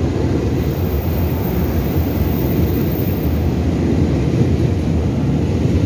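Taiwan Railway express electric train running along an underground station platform: a steady, loud rumble of wheels and motors that echoes off the station walls.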